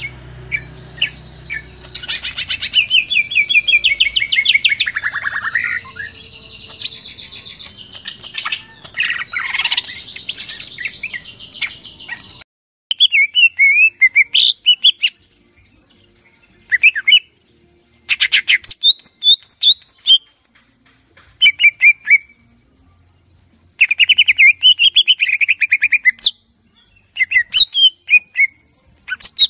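Cucak ijo (green leafbird) singing a rapid, varied song of chirps, trills and whistled phrases. About 12 s in, the recording changes abruptly to cleaner, separate bursts of song with short silences between them.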